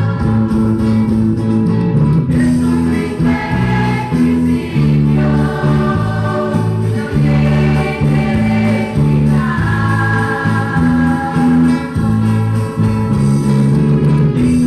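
A group of voices singing a hymn in held, steady notes.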